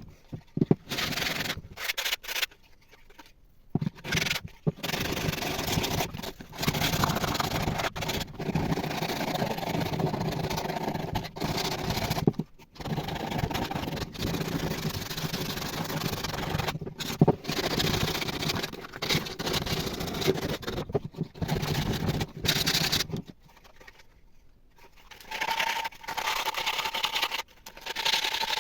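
Abrasive rubbing and scraping on a coffee grinder's parts during restoration, going in stretches of several seconds with short pauses between.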